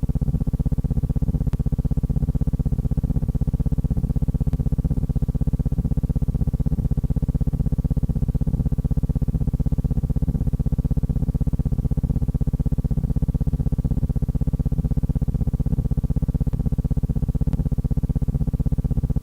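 A steady low buzzing drone with a fast, even pulse, unchanging throughout.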